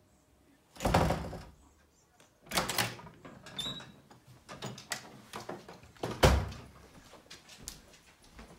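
A panelled wooden door being handled and opened, with a few loud thuds and scattered clicks of the latch and knob.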